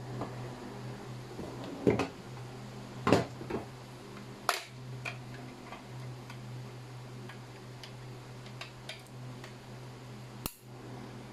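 Hard plastic clicks and knocks from handling a Ubiquiti NanoStation 5AC and its cable: an Ethernet plug clicking into a port and the unit's snap-on back cover being opened. The sharpest clicks come in the first half, over a steady low hum.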